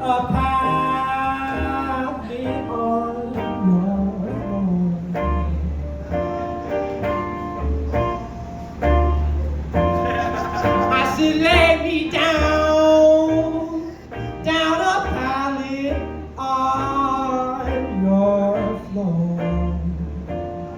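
Live jazz band playing, with guitar and a moving bass line under a lead melody.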